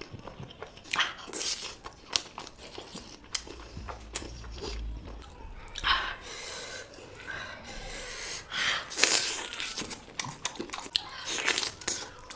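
Close-miked eating sounds: a person biting, crunching and chewing mouthfuls of curry and rice, in irregular bursts with sharp clicks.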